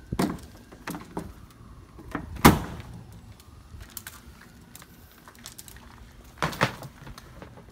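Clunks and knocks as a coiled high-pressure air fill hose is lifted off its hanger on a van door and handled, its metal end fitting knocking about, with small rattles between. The loudest knock comes about two and a half seconds in, and a pair of knocks near the end.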